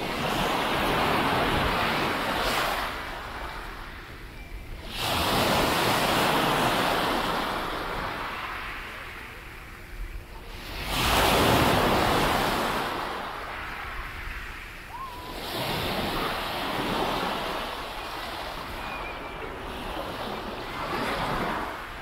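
Sea waves breaking and washing up the shore in slow surges, one about every five seconds, the loudest a little past halfway.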